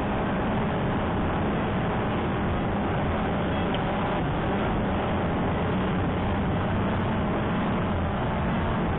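CX-20 quadcopter's electric motors and propellers whirring steadily in flight, a constant hum with no change in pitch.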